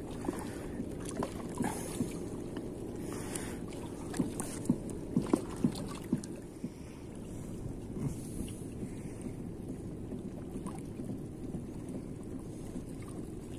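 A steady low rumble of wind on the microphone. Over it, a quick run of sharp taps and clicks from about four to six seconds in comes from handling the fish and the tackle as the hook is worked free.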